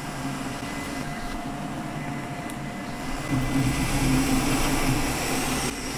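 Creality K1C 3D printer running a print: a steady whir, mostly its cooling fans with a little printhead movement, growing somewhat louder a little over halfway through.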